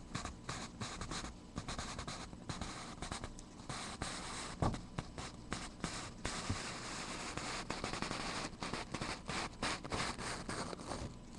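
Faint scratching and rustling with many small clicks, from things being handled at close range.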